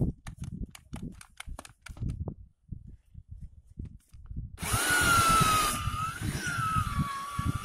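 Handheld electric mortar mixer fitted with an auger bit. After a few seconds of knocks and clicks from handling, the motor starts a little over halfway through and runs with a whine whose pitch sags and recovers twice as the auger bores into the soil.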